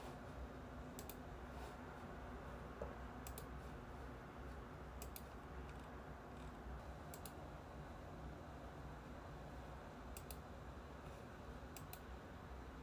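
Sparse, faint clicks at a computer while emails are being read, each a quick double tick, coming every second or two over a low steady room hum.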